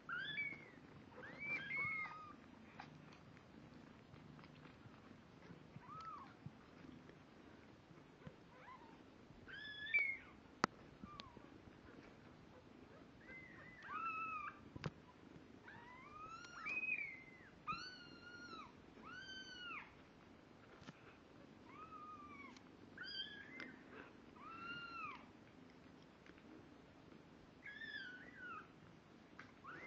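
Two-week-old snowshoe Siamese kittens mewing: short, high, arched cries, some alone and some in quick runs of two or three, with a couple of faint clicks among them.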